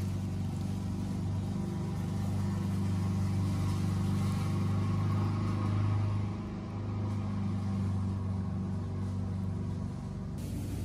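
A steady low hum and rumble, dipping briefly a little past halfway.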